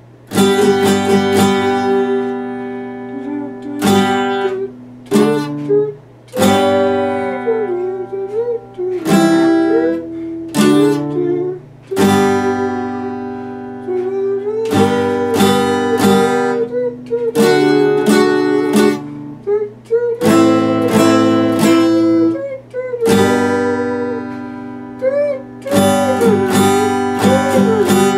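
Epiphone acoustic guitar strummed in chords that change every few seconds, with a man's voice singing a wavering melody along with it.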